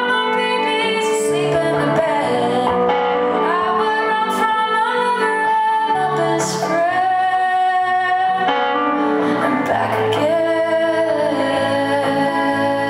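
A woman sings a slow, sustained melody, accompanied by her own strummed electric guitar in a live solo performance.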